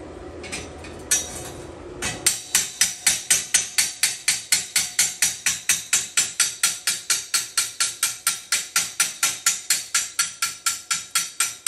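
Fast, evenly spaced hammer strikes on welded steel, about four a second, beginning about two seconds in after a couple of single taps: a hammer chipping weld slag off a steel-slat grate.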